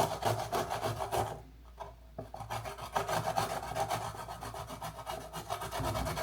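Fresh root ginger being grated on a fine grater: quick repeated scraping strokes across the grater's teeth, with a short break about a second and a half in before the strokes resume.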